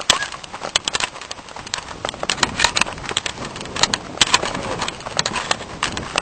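Running footsteps through woodland undergrowth: leaves, twigs and brush crunching and snapping underfoot in a quick, irregular run of sharp crackles.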